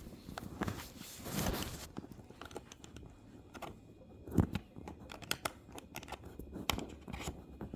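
Scattered small clicks, knocks and rustling of hands handling a USB cable and handheld tuner, with a louder rustle about a second and a half in and a sharper knock about four and a half seconds in.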